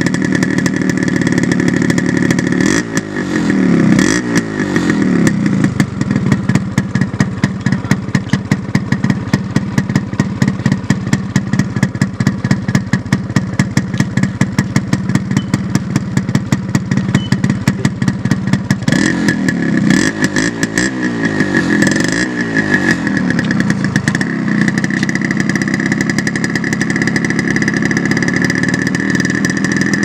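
Yamaha RX100's 98 cc air-cooled two-stroke single-cylinder engine running, with quick rises and drops in revs a few times near the start and again about two-thirds through, and a steady, evenly pulsing run in between.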